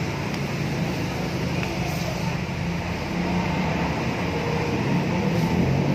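A motor vehicle engine running steadily, heard as a continuous low rumbling hum.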